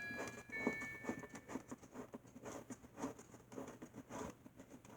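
A screwdriver turning a screw out of the side of a homemade cardboard clock case, making soft irregular clicks and scrapes about three or four times a second. In the first second and a half, the last high notes of the clock's electronic chime tune fade out.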